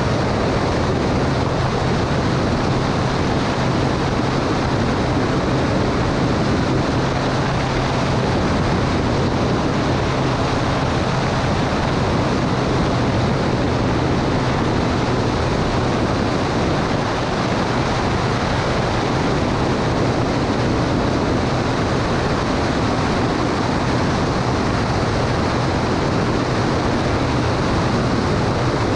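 Cessna 210 Turbo Centurion's turbocharged six-cylinder engine and propeller running steadily, with a dense, even rush of engine and air noise and a low steady hum.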